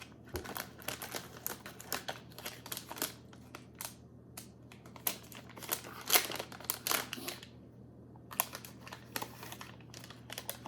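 Snack packaging being opened and handled, crinkling and crackling in short irregular bursts, with brief pauses about 4 seconds in and again after 7 seconds.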